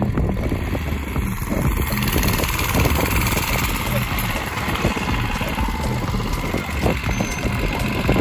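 Mini bike's small single-cylinder gas engine running steadily as the bike rolls slowly across grass.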